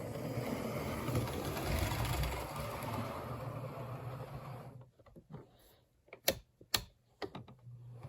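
Hornby Hogwarts Castle model steam locomotive running along the track, its small electric motor and gears whirring steadily. The running stops about five seconds in, and a few sharp clicks follow near the end.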